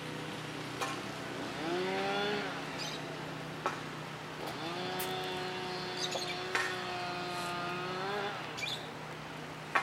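A small engine revving up twice: briefly about two seconds in, then held at a steady high pitch for about four seconds before dropping off. A steady low hum runs underneath, with birds chirping.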